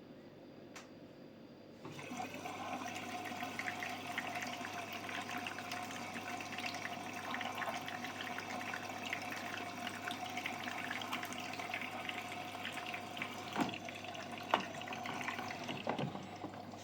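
Water rushing into a Samsung washing machine through its inlet valve. It starts suddenly about two seconds in and runs steadily, with a steady whistling tone and a low hum over the rush. Three short knocks come near the end.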